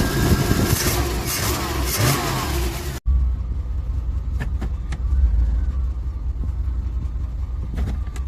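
1993 Chevrolet C1500 pickup's engine running at idle on freshly installed spark plugs. The sound cuts abruptly about three seconds in, then the steady low idle goes on, with a few light clicks.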